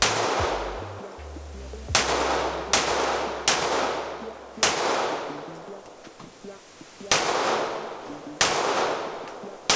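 Pistol shots on an indoor range, about eight at uneven intervals of roughly one to two and a half seconds, each sharp report followed by a ringing echo off the concrete-block lane walls.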